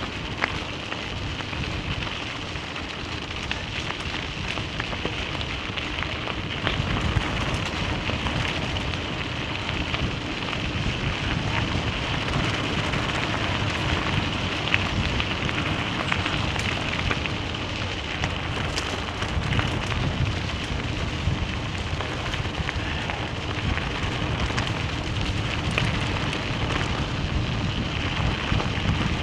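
Vehicle tyres running over a loose gravel road: a steady crackling hiss of crunching stones, with scattered sharper ticks of flicked gravel.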